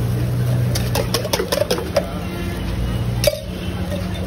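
A quick run of about six or seven light metal clinks, like a utensil tapping, then one sharper clink a little over three seconds in, over a steady low hum.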